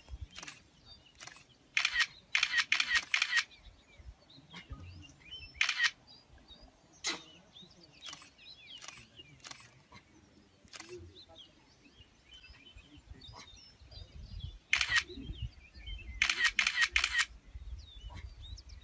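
Camera shutters clicking: scattered single shots and two quick bursts of continuous shooting, one about two seconds in and one about sixteen seconds in.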